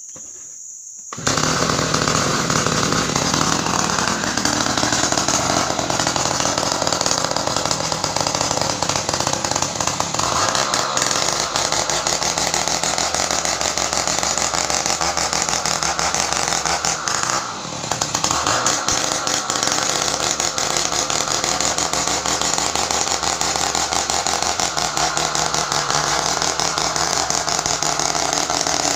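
A large two-stroke 070 chainsaw starts about a second in and runs loud and steady, cutting ironwood. About two-thirds of the way through its note and level dip briefly, then pick up again. Crickets chirp steadily before the saw begins.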